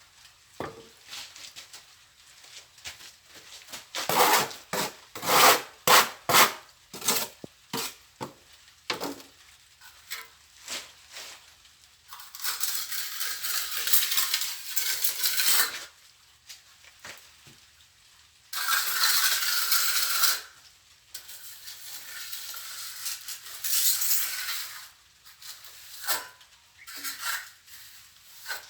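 Steel plastering trowel scraping and tapping on mortar: a run of short sharp strokes, then several longer scrapes lasting a few seconds each.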